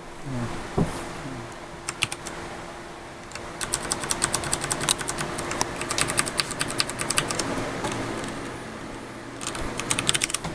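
Keystrokes on a Ducky Shine 3 mechanical keyboard with Cherry MX Brown switches: a few single key presses, then a fast run of typing clicks for about four seconds, and another short burst of presses near the end.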